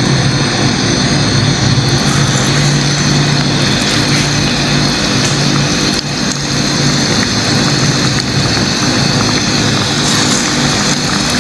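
Moong dal pakora batter sizzling as it drops into hot oil in a kadai, over a steady low hum.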